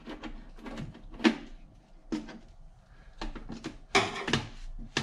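Hand work on a car's intake: scattered knocks and clunks as the throttle-body couplers are worked loose with a flathead screwdriver and the intake tube is pulled free. The loudest knocks come about a second in and again around four seconds in.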